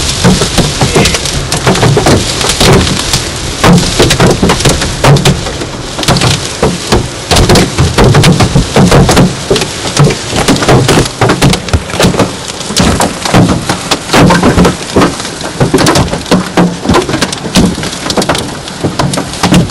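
Hailstones pelting a car's roof and windscreen during a severe hailstorm: a loud, dense clatter of hard impacts many times a second over a steady hiss of heavy rain.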